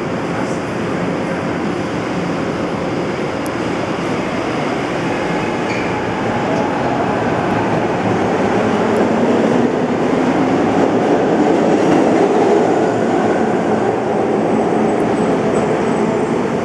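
SEPTA M4 subway train pulling out of an underground station, its rumble growing louder as it picks up speed along the platform.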